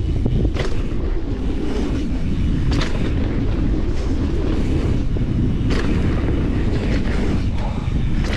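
Wind buffeting the microphone over the tyre rumble of a mountain bike riding fast down a dirt trail, with a few sharp knocks as the bike hits bumps.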